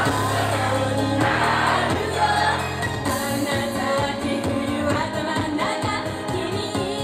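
Live J-pop idol song: several young women singing together into microphones over a loud amplified backing track. Held bass notes give way to a steady beat about three seconds in.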